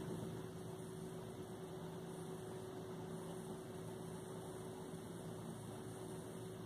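Low steady electrical hum with faint hiss: room tone, with no distinct events.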